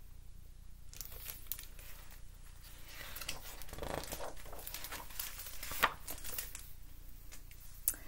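Paper rustling and crinkling as the pages of a picture book are handled and turned, in irregular bursts, with one louder crackle near the end.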